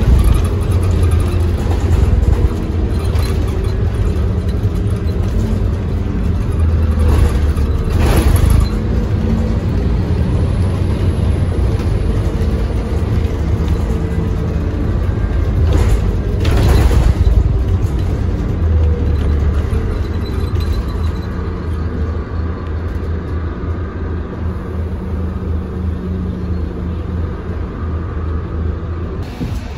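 Scania K280UB bus's five-cylinder diesel engine and ZF Ecomat automatic drivetrain heard from inside the passenger cabin, a steady low rumble as the bus drives. A few sharp knocks or rattles stand out a few seconds in, at around eight seconds and again around sixteen seconds. The sound grows quieter over the last several seconds.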